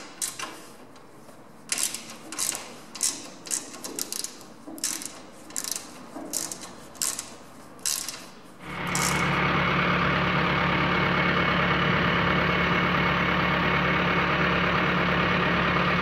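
Sharp clicks and knocks, about one or two a second, as wooden slats are fitted onto the steel frame of a 1970s potato harvester. About eight and a half seconds in, the sound cuts to a John Deere tractor's engine running steadily while it pulls the harvester.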